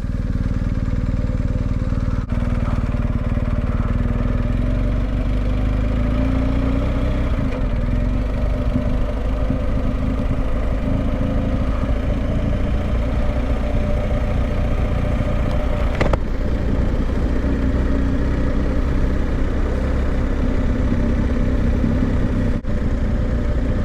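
Motorcycle riding at a steady pace, its engine note running evenly under a low rush of road and wind noise. One brief click about sixteen seconds in.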